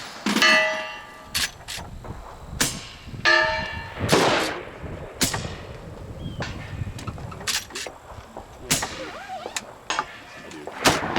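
Gunshots at irregular intervals, a dozen or so in all and some louder than others. The shot about half a second in and another a little over three seconds in are each followed by a steel target ringing for about a second.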